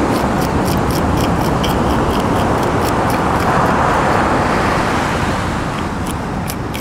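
A blunt serrated fish scaler scraping scales off a perch in quick strokes, several a second, with a pause in the middle. The steady noise of surf runs underneath.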